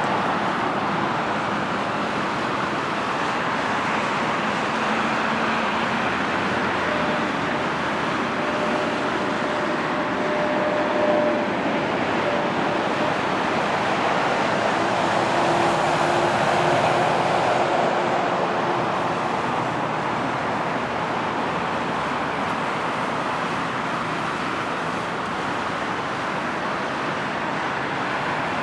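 Jet airliner engines on landing approach, a steady jet noise that swells to a peak about sixteen seconds in and then slowly fades, with faint engine whines that drop in pitch as the aircraft passes.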